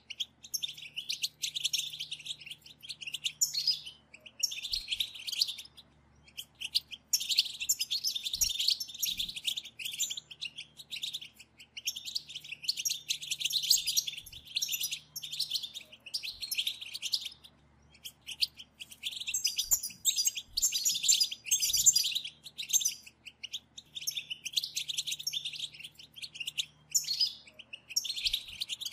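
Several European goldfinches twittering in dense, rapid chatter that comes in bursts of a few seconds with short pauses between. This is the group 'batbata' call used to excite a caged goldfinch into song.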